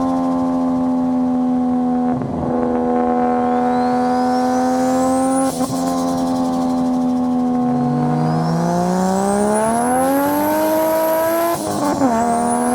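Turbocharged race car engine running, with a high turbo whistle rising twice as it spools up. The engine note breaks off sharply three times, and in the second half it climbs in pitch.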